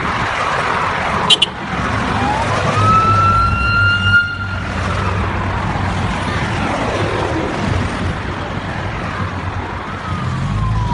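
A convoy of SUVs driving past with steady engine and road noise, while a siren wails, rising about two seconds in and holding, then sweeping down again near the end.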